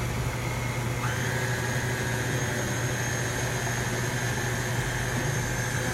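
Electric stand mixer running at low speed, its paddle creaming margarine and butter in a steel bowl: a steady motor hum with a whine that shifts slightly lower about a second in.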